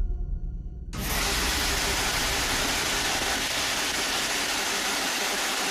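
A low rumble, then from about a second in a steady hiss of radio static from a Spirit Box SB-11 sweeping the radio band, with no voice coming through.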